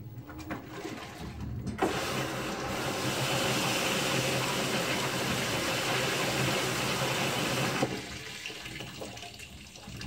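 Direct-drive top-loading washing machine churning a load in soapy water, with a steady rush of water in the tub that starts sharply about two seconds in and cuts off suddenly near the end, leaving lighter splashing.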